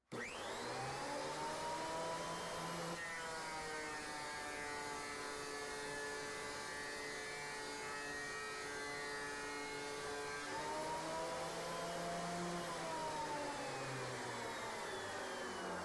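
Delta portable thickness planer running, heard faintly. Its motor whine rises as it spins up, then drops to a lower pitch for several seconds while a board feeds through the cutterhead. It comes back up as the board clears, and the machine winds down near the end.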